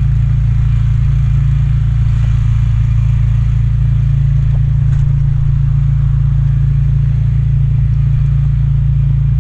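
An engine running steadily, an even low drone.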